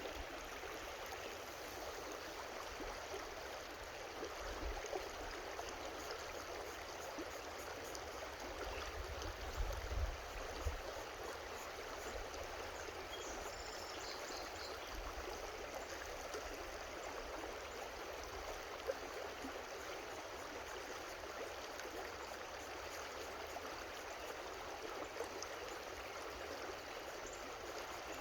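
Creek water running steadily over rocks, an even rushing and gurgling. A few low thumps about ten seconds in.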